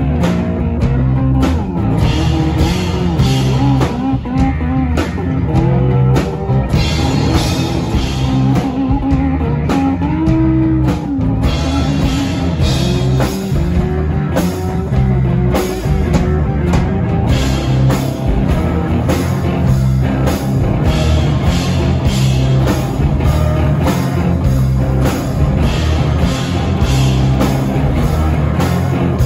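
Live rock band playing with electric guitars, bass guitar and drum kit.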